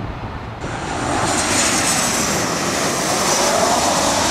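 Jet airliner's engines passing close by: a loud rushing noise with a high, slowly falling whine, swelling up about half a second in.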